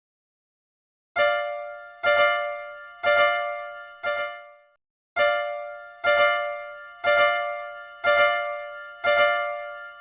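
Japanese railroad crossing warning bell ('kan-kan') dinging about once a second: nine bright, ringing strikes, each fading away, with a short break about halfway through.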